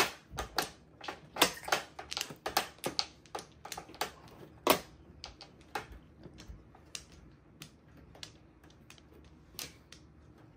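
Mahjong tiles clacking: irregular sharp clicks of tiles being set down and knocked together. They come thick and fast for the first five seconds, then thin out to scattered single clicks.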